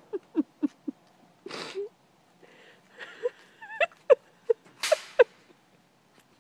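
A person laughing breathlessly: quick short 'ha' pulses at first, then wheezy gasps and high squeaky laughs, with a couple of breathy snorts.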